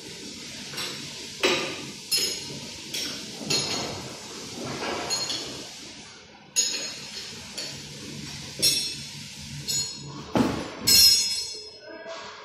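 Metal hand tools clinking and clanking as they are handled against each other and a metal surface: about a dozen irregular sharp knocks with a short ring, the loudest about ten and a half seconds in. A faint steady low hum runs underneath.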